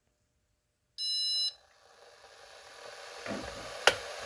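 Piezo buzzer on the Arduino kettle controller giving one high start-up beep of about half a second. After it, a steady hiss slowly swells, and a single sharp click comes near the end.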